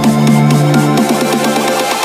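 Electronic dance music with a fast, steady beat.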